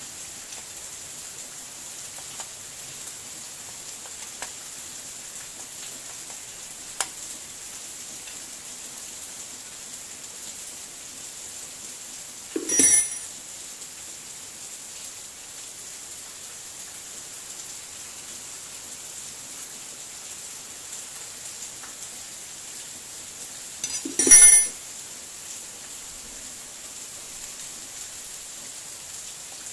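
Two sharp metallic clanks of steel hand tools, about 13 and 24 seconds in, the second louder, with a few faint ticks before them, while the bolts of a small four-stroke generator engine's crankcase cover are tightened. A steady high hiss lies under everything.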